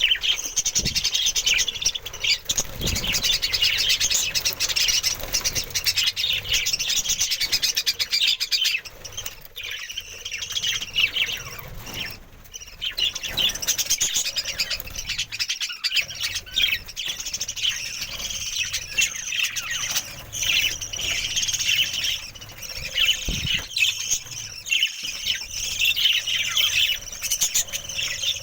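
A flock of budgerigars chattering and squawking nonstop, with a somewhat quieter stretch about a third of the way through.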